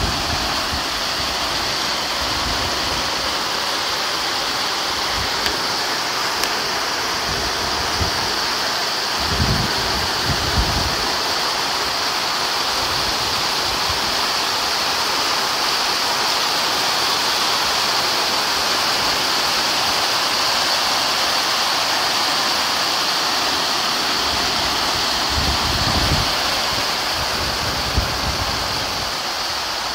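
Heavy rain falling steadily onto a paved and grassy courtyard, a constant hiss, with a few brief low thumps about ten seconds in and again near the end.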